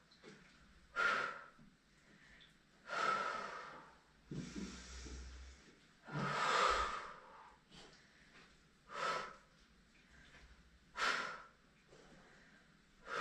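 A person breathing hard through exercise reps: forceful exhalations, about one every two seconds.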